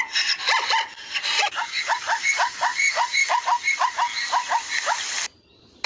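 A dog yipping: a fast run of short, high, rising yips, about three or four a second, that stop suddenly near the end.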